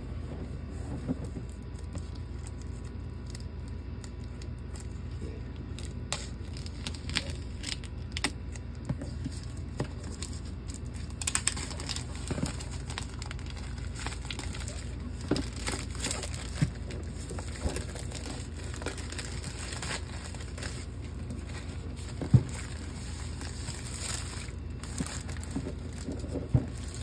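Plastic shrink wrap being torn and peeled off a large board game box, crinkling and crackling in irregular bursts. Cardboard taps against the box as it is handled, and one sharp knock comes a little after the middle.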